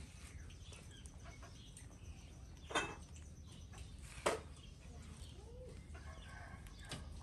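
Chickens clucking: two short sharp clucks about a second and a half apart, over a low steady background hum.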